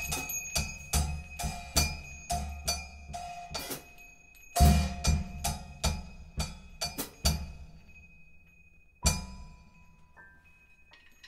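Drum kit played with wooden sticks in free improvisation: quick strikes on drums and cymbals, a brief gap about four seconds in, then a loud new flurry. It thins out to a single accented hit that rings out, and a few faint sustained high notes come in near the end.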